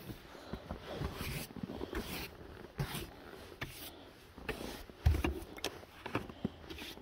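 Snow brush sweeping snow off a car's side windows and door in irregular strokes, the bristles scraping over glass and paint, with a dull thump about five seconds in.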